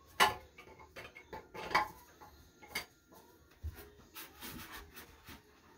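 Wrench clinking and knocking on the metal bolts and nuts that hold a toilet tank to its bowl as they are tightened. The sharp clinks come a second or so apart, the loudest just after the start, with a quicker run of them about four to five seconds in.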